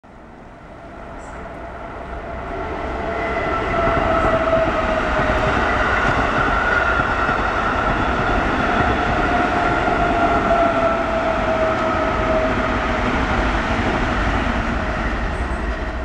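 A train passing close by: its rumble swells over the first few seconds, holds steady, then begins to fade near the end, with faint drawn-out tones running through it.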